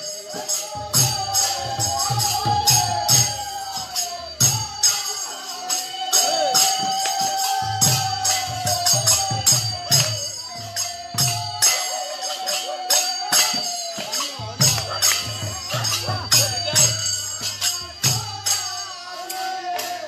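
Devotional kirtan singing: voices sing long, gliding phrases over metal hand cymbals clashing in a fast steady beat, with low drum strokes that drop out a few times.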